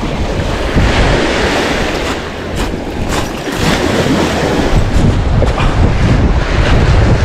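Small lake waves slapping and splashing against a concrete breakwater, with wind buffeting the microphone in a heavy low rumble.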